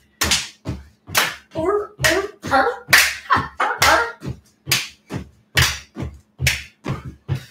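Seal jumping jacks: hands clapping together and feet landing on a wooden floor in a steady rhythm, about two sharp slaps a second.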